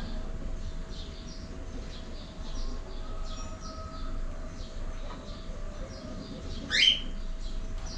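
Cockatiels chirping: many short chirps throughout, with one loud rising call about seven seconds in.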